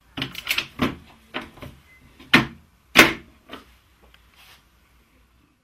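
Knocks and clatter of drill press parts being handled during disassembly. A quick run of knocks comes in the first second, then two louder single knocks about two and a half and three seconds in, tailing off into light taps.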